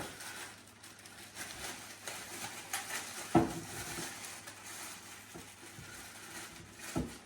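Packaging and items rustling as they are handled and unpacked from a box, with a sharp knock about three and a half seconds in and another near the end.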